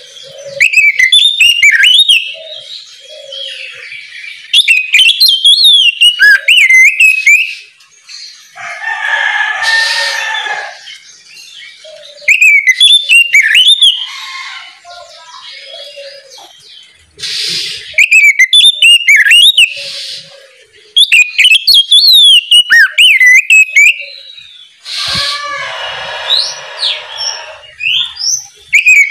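Oriental magpie-robin (kacer) singing loud, varied phrases of rapid whistled, sliding notes in bursts of a couple of seconds. Twice, around ten seconds in and again near the end, a harsher, lower sound of about two seconds breaks in.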